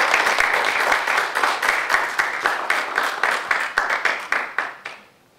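Audience applauding, dense clapping from many hands that dies away near the end.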